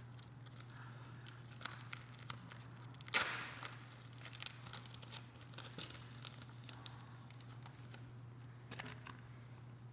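Packaging being torn open and crinkled by hand: one loud sharp rip about three seconds in, then scattered crinkling and rustling.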